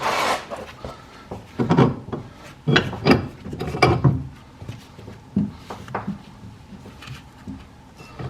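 Irregular knocks, clunks and scraping of car parts and tools being handled, several sharp strikes close together in the first half, then sparser and quieter.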